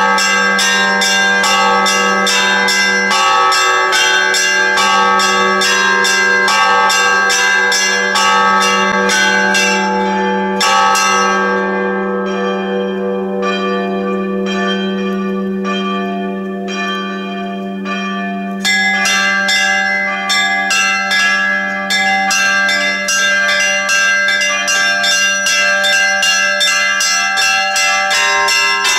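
Church bells ringing: several bells of different pitches struck rapidly, about three to four strokes a second, over a low steady hum. About eleven seconds in the quick strokes stop and fewer bells sound roughly once a second, then the rapid ringing resumes some seven seconds later.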